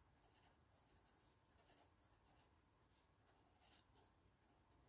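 Near silence with the faint scratch of a felt-tip pen writing on notebook paper, in a few short strokes.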